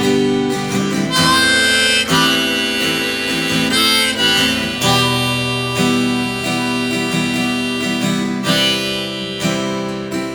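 Instrumental song intro: a harmonica playing a melody of held notes over strummed acoustic guitar.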